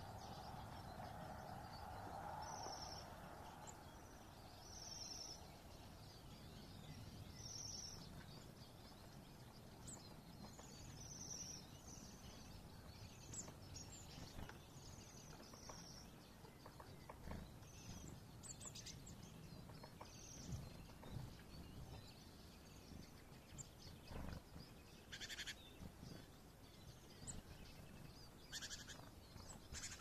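Faint, high, thin calls of small songbirds, short notes every two or three seconds, with a couple of sharper calls near the end, over a faint low rumble.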